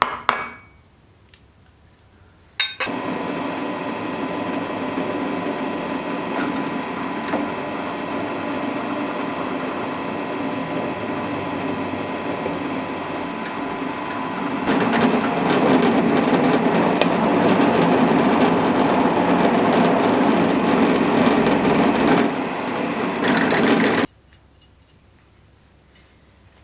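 Power tool working wood: a couple of sharp clicks, then the machine starts suddenly about three seconds in and runs steadily. It gets louder for several seconds past the middle, as if under heavier load, and cuts off abruptly near the end.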